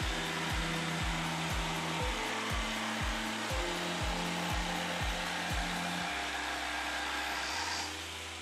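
Jigsaw cutting through a thin western cedar tongue-and-groove board with a steady motor and blade noise that stops near the end. Background music with a steady beat plays throughout.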